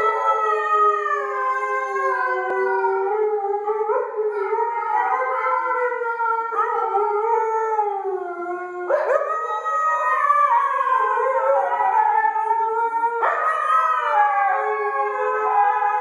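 Two huskies howling together, long wavering howls that overlap one another, with new howls starting about four, six and a half, nine and thirteen seconds in.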